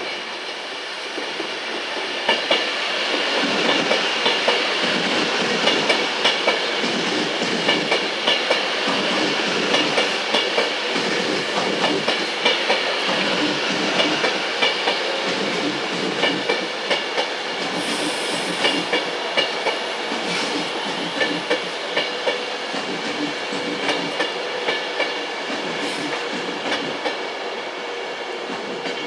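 A train passing at the station, its wheels clicking rhythmically over the rail joints. The sound builds over the first few seconds and eases off near the end.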